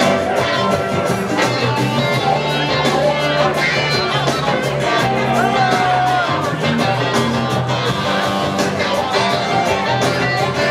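Live blues-rock band playing: a clavinet solo over electric bass, electric guitar and a steady drum beat.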